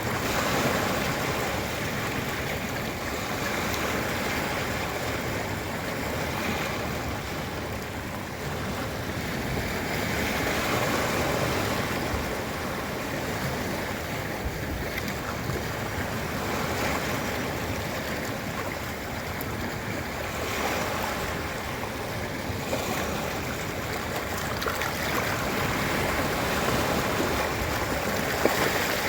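Ocean surf breaking and washing on a beach: a continuous rush of water that swells and eases every few seconds.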